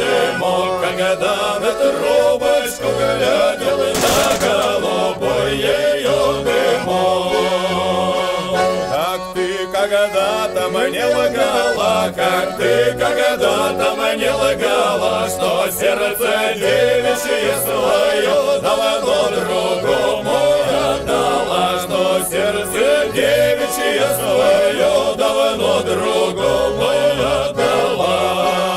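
Background music: a choir chanting over a steady low drone and a pulsing bass, with a single sharp hit about four seconds in.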